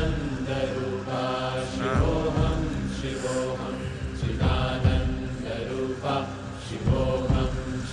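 A voice chanting in long held notes, phrase after phrase, over a low rumbling noise.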